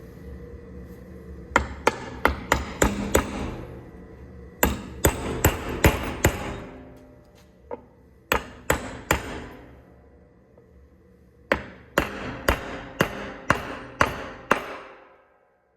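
Hammer striking metal in quick runs of blows, about six, then six, then three, then eight, each blow ringing briefly, over a steady low hum that fades out near the end.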